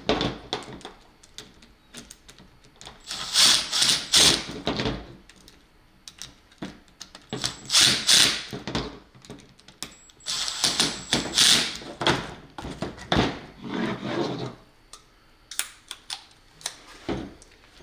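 Impact drill with a Phillips bit run in several short bursts, driving the plug cover's screws down a little at a time, with small clicks and handling of metal parts between bursts.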